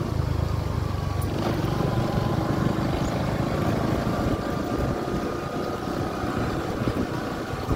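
Motor scooters running steadily as they climb a dirt road, with wind rushing over the microphone.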